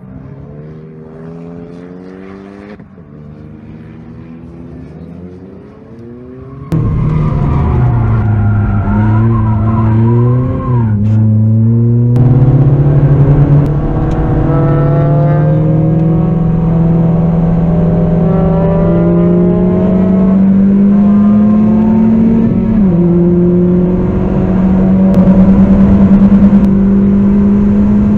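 Lotus Elise S220's supercharged four-cylinder engine with a Stage 3 Lotus exhaust. For the first few seconds it is heard from the trackside, revving as the car runs wide off the track. Then it is much louder from inside the car, pulling hard with the pitch climbing steadily, dropping sharply at a gear change near the end and climbing again.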